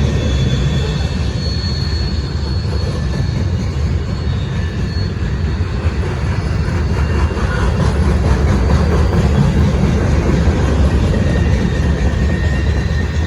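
CSX freight train rolling past: a steady, loud rumble of steel wheels on rail, with faint high-pitched squeal tones at times.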